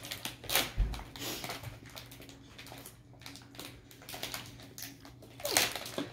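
Plastic snack wrapper crinkling and crackling in irregular bursts as it is pulled open by hand, over a low steady hum.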